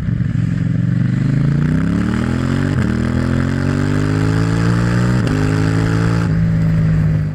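Kawasaki ZX-6R 636 inline-four engine and exhaust running under load, its pitch climbing steadily with two brief hitches along the way, then holding steady before cutting off abruptly near the end.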